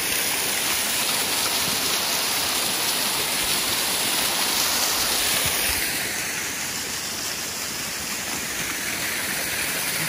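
Water rushing down rocks in a small mountain waterfall, a steady hiss that eases a little about six seconds in.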